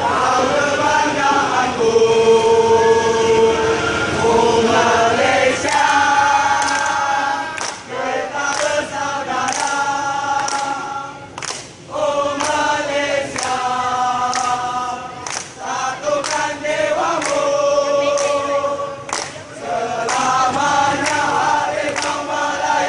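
Football supporters singing a terrace chant together in the stands, many voices holding long notes in unison. From about six seconds in, sharp hits keep a steady beat about twice a second.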